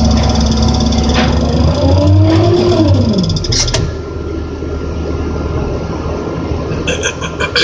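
Crane engine running under load, its pitch rising and then dropping back about two to three seconds in, with a sharp click just after. Near the end, rapid dashed beeping begins: the load moment indicator warning that the crane is approaching its overload capacity.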